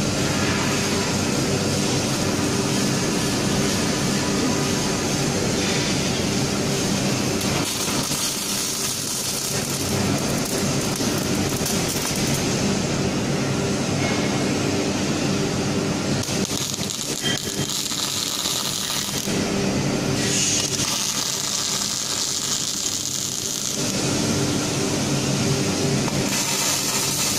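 Steady machinery hum and hiss from a robotic welding cell, with the welding arc off while the six-axis robot arm repositions its torch. The texture of the noise shifts a few times.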